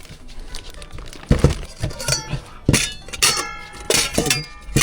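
Bowls clinking and knocking on a hard surface several times while dog meals are dished out, with faint background music.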